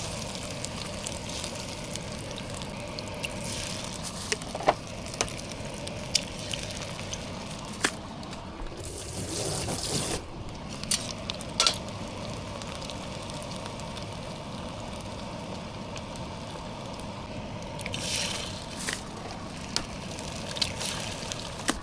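Food cooking in a pot for curry, giving a steady sizzling, bubbling noise, with a few sharp clicks of a utensil against the pot.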